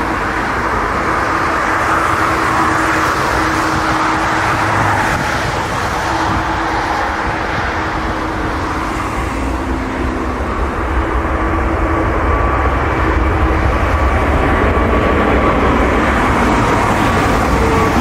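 Airbus A380's four jet engines at takeoff thrust: a loud, steady rush of noise with a thin whine in it, growing louder in the second half.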